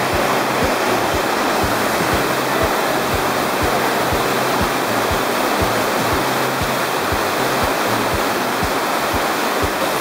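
Laughing Whitefish Falls in high spring flood: a loud, steady roar of heavy water pouring over the drop. Under it runs music with a steady low beat of about two thumps a second.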